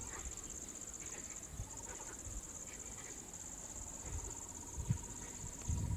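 Steady high-pitched insect chirring, with a fainter steady whine joining about a second and a half in. Soft low thumps and rustles underneath, with one short thump near the end.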